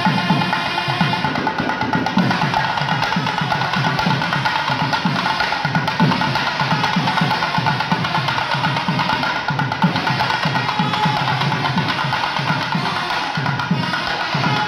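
Nadaswaram and thavil ensemble playing: the long double-reed nadaswaram pipes hold a sustained, reedy melody over fast, dense thavil drumming.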